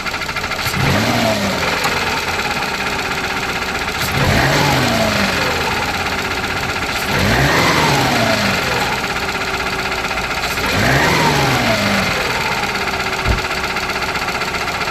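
Car engine idling and blipped four times, each rev rising and falling back to idle, with a single short thump near the end. The engine is being run to let a knock be heard.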